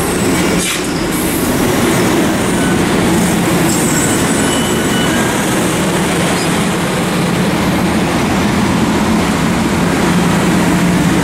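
Amtrak Pacific Surfliner passenger cars rolling past on the rails: a steady rumble of wheels and running gear, with a low hum underneath.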